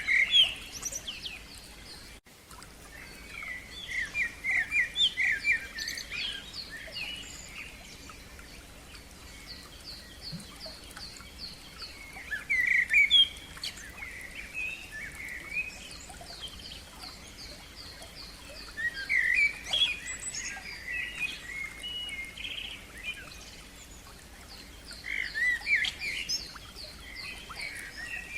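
Songbirds singing outdoors: bursts of warbling song every few seconds, with runs of quick repeated high notes in between.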